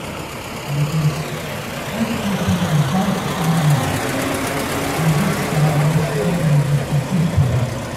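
Vintage car's engine running as the car drives slowly past at close range, with a voice talking and crowd noise over it.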